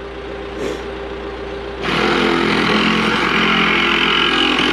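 A saw cutting through an orange plastic riser pipe: a loud, steady rasping cut starts about two seconds in and keeps going.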